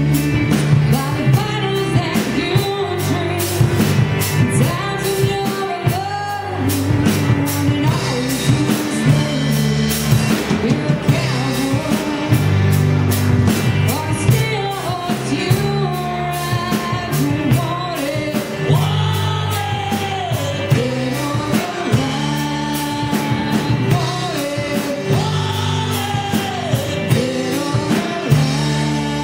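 Live rock band playing: a woman sings lead over electric guitar, bass guitar and drum kit, with a steady drum beat.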